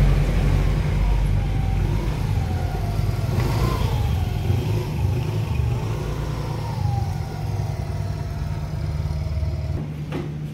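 Freshly rebuilt TVS Jupiter scooter's single-cylinder four-stroke engine running with its silencer fitted, its pitch rising and falling several times, then settling to a steadier hum near the end.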